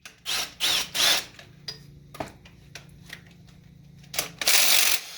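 Short bursts of tool noise and a few sharp clicks from hands-on work with tools on a car's engine bay, over a faint steady hum.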